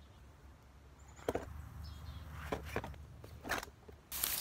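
Handling noise from gear being worked by hand: a few separate sharp clicks and knocks, then a sudden loud rustling and scraping from about four seconds in.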